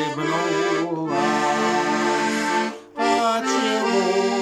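Tula 301M garmon in F major playing full sustained chords of a folk-song accompaniment, with a short break about three seconds in before the chords start again.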